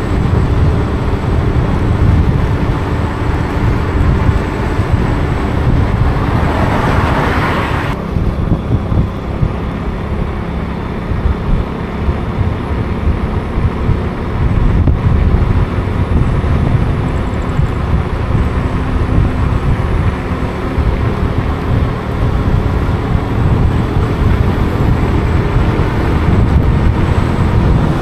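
Wind buffeting the microphone over the steady running noise of a moving vehicle, with a louder rushing swell that cuts off suddenly about eight seconds in.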